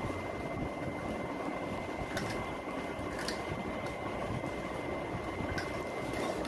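Steady room noise with a thin high tone, and a few faint clicks of ludo counters being moved on the board, about two, three and five and a half seconds in.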